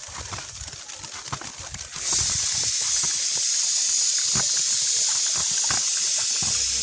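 A steady, loud hiss that starts suddenly about two seconds in, with light clicks and knocks before and under it.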